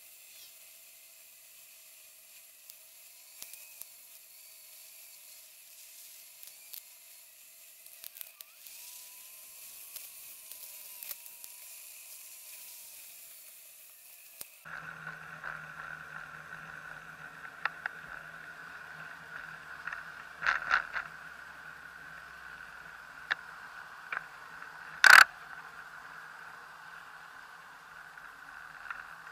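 Ride noise from a bicycle-mounted camera: a faint, steady hiss that turns abruptly into a louder steady hum about halfway through. A few clicks and one sharp knock come late on.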